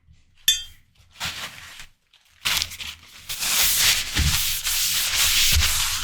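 Ripe watermelon being worked, giving a crisp, wet, scraping crunch that sets in about halfway through and runs on steadily, with a few dull thuds, after a short sharp click about half a second in.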